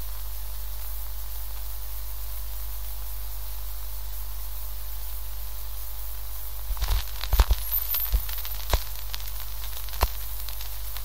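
Steady electrical hum and hiss from a Garrard turntable's playback. Nearly seven seconds in, the stylus meets a 7-inch vinyl single and the lead-in groove gives a cluster of loud pops, then scattered clicks and crackle.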